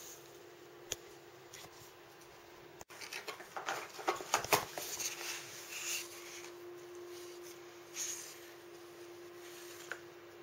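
A cat digging at a cardboard egg carton for hidden treats: a burst of scrabbling, rattling and tapping about three seconds in, loudest a second later, then lighter scratching, over a steady faint hum.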